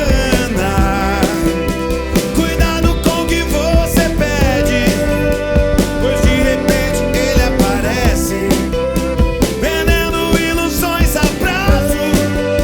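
Rock band playing live in an instrumental break: a lead line of bending notes over steady drum hits and sustained chords.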